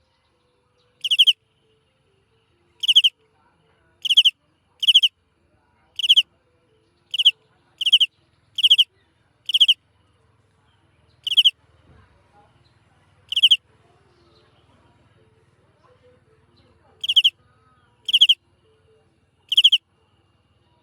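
A small animal calling: about fourteen short, loud, high buzzy calls, each a fraction of a second long, repeated every one to two seconds with a longer pause midway.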